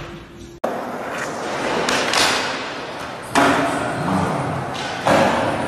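Skateboard wheels rolling on a smooth concrete floor, then the board popping onto a metal flat rail and grinding along it about three seconds in. A sharp slap about five seconds in is the board landing back on the floor.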